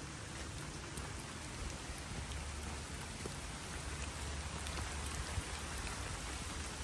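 Light rain pattering steadily, with a few faint ticks of single drops, as the rain is letting up.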